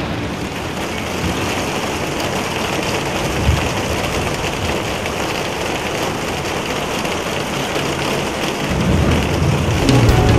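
Steady heavy rain falling and splashing on wet ground and puddles, with a low rumble of thunder building near the end.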